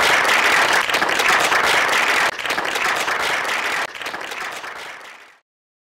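Audience applauding, a dense patter of many hands clapping that thins and fades out about five seconds in.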